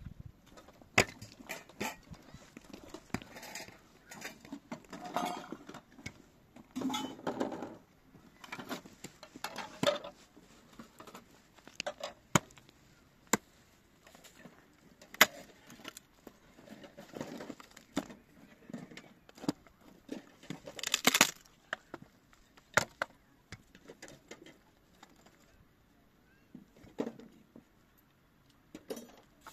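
Irregular sharp knocks and clinks of objects being handled, with short rustling or scraping noises between them; the loudest is a brief noisy burst about two-thirds of the way through.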